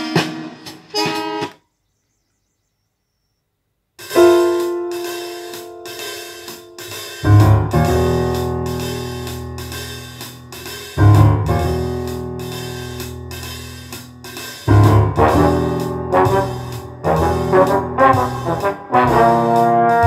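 Music from a Denon DCD-595 CD player over loudspeakers: a track cuts off, about two seconds of silence while the player skips to another track, then new music starts about four seconds in, with ringing, fading chords and a bass line coming in a few seconds later.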